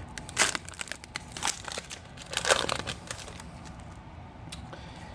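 Trading cards and their pack wrapper being handled: short crinkling rustles, the loudest about half a second, a second and a half and two and a half seconds in.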